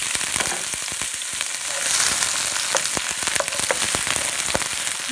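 Chopped red onions and green chillies sizzling in hot oil with mustard seeds in a frying pan: a steady loud hiss with many small crackles and pops, stirred with a wooden spatula.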